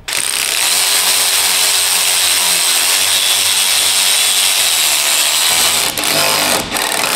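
Cordless impact wrench running a fastener in, a steady loud whir with a brief break about six seconds in before it starts again.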